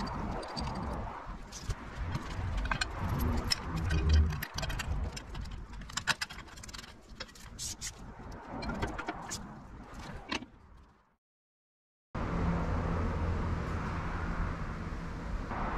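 Clicks, knocks and light rattling of small metal and plastic parts being handled and fitted together as a homemade lever scale is assembled. About two-thirds through the sound cuts to a second of silence, then a steady low hum takes over.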